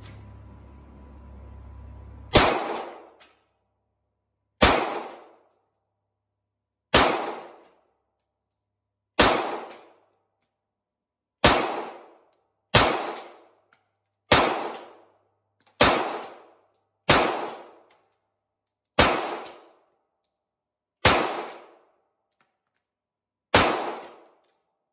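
Twelve single shots from a 9mm pistol, each with about a second of echo off the walls of an indoor range. The first few come about two seconds apart and the middle ones a little quicker.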